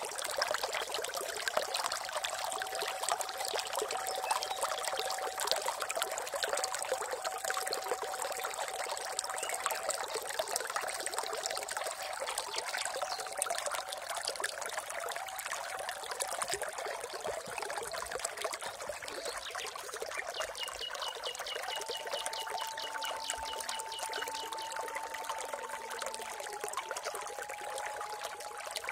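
Water trickling and splashing steadily, like a small stream or a spout pouring. A faint rapid pulsing trill comes in briefly about two-thirds of the way through.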